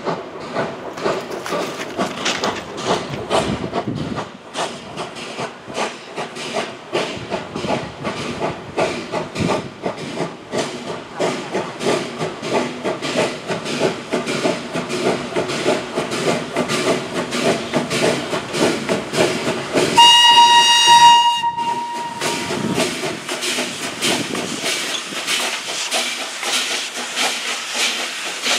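Two FS Gr 740 steam locomotives double-heading a train, their exhaust chuffing in a steady even beat as they pull out and pass by. One long steam-whistle blast sounds about twenty seconds in, the loudest moment.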